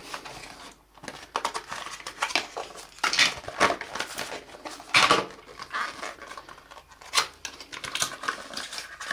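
Phone box and its packed accessories being handled and taken out: irregular taps, clicks and rustles of cardboard and plastic, a little louder about three, five and seven seconds in.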